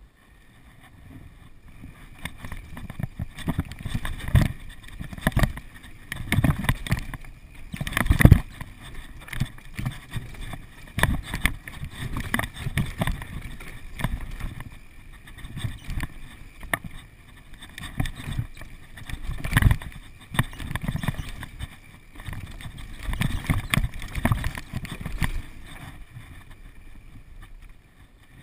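Downhill mountain bike running fast over a dirt trail: tyres rumbling over dirt and roots, with the bike rattling and knocking on rough ground in irregular surges, the hardest hit about eight seconds in.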